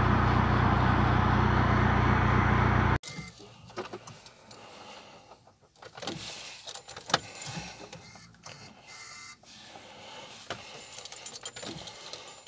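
VW Golf 4 1.9 TDI (ALH) four-cylinder diesel idling steadily at about 1,000 rpm, which cuts off abruptly about three seconds in. Then come quiet clicks and keys jangling at the ignition, with the dashboard warning lights on before a start.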